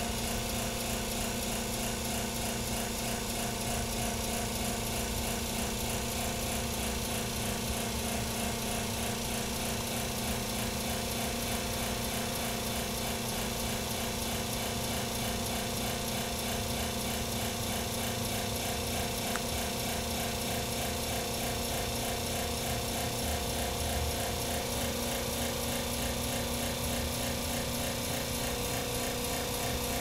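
Raptor 150 GPH electric fuel lift pump on an LBZ Duramax diesel running with a steady, unchanging mechanical noise carrying a few held tones. This is the weird noise it made about an hour before it failed, the sign of a lift pump on its way out.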